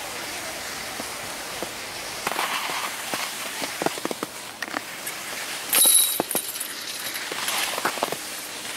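Skis sliding and scraping on snow: a steady hiss with scattered crackles and clicks, and a brief loud burst of noise about six seconds in.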